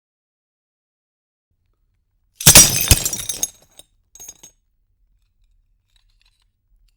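Glass shattering: a sudden loud crash about two and a half seconds in, followed by about a second of tinkling shards and a few last small tinkles.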